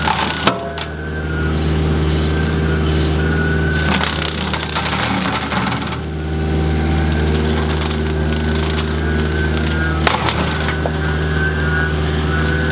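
Kubota KX121 mini excavator's diesel engine running steadily under load while its hydraulically driven 48-inch rotary brush cutter cuts brush. The brush snaps and cracks sharply about half a second in and again about ten seconds in, with a longer spell of crushing and splintering between four and six seconds.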